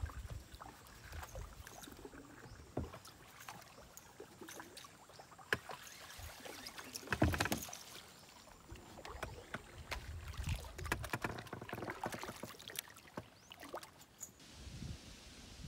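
Knocks and clicks against the hull of a small Porta-Bote folding boat moving on the water, over a low uneven rumble, with a louder cluster of knocks about seven seconds in. Near the end it drops to a quieter, steady background.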